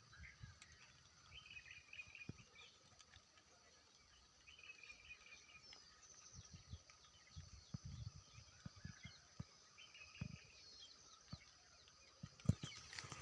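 Faint rural outdoor ambience: a steady high-pitched insect drone with short bird chirps now and then, and scattered low thumps. A few louder knocks come near the end.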